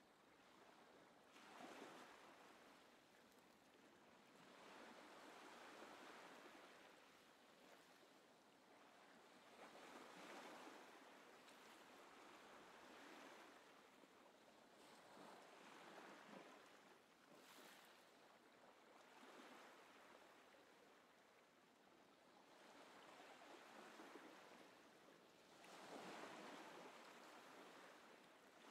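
Faint water ambience: soft waves washing in and receding, swelling and fading every few seconds.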